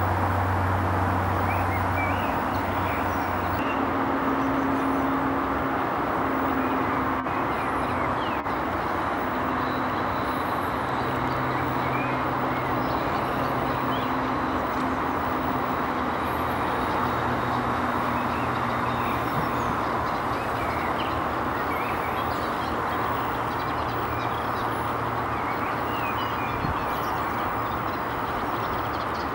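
Steady low mechanical rumble with a low hum that shifts in pitch now and then, and faint, short, high chirps scattered throughout.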